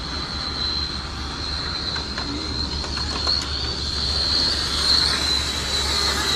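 RC oval race cars whining steadily as they lap the banked track, one high pitch that swells a little as the cars come past, over a low steady hum.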